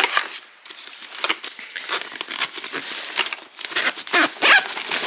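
Hard plastic breast pump parts being handled: a quick run of small clicks and rattles with some rustling.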